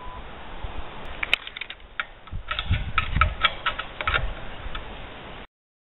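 Steel tape measure being pulled out and handled against a satellite dish's metal feed arm: a run of quick clicks and rattles with some low knocks. The sound cuts out abruptly shortly before the end.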